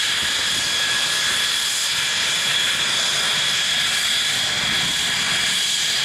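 Saab 37 Viggen's Volvo RM8 afterburning turbofan running steadily, a constant jet rush with a high whine.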